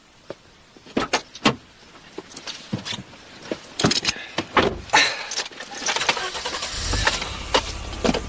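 Car door handled and shut with sharp clunks as someone climbs into the driver's seat, then the car's engine starts about seven seconds in and settles into a steady low idle.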